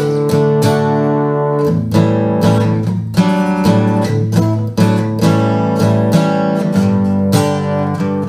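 Emerald X20 carbon-fibre acoustic guitar being played, a run of picked notes and chords struck about every half second, each left ringing.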